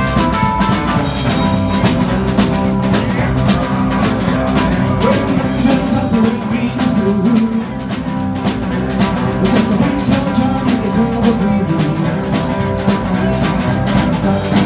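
Live rock and roll band playing: electric guitar over a drum kit keeping a steady beat.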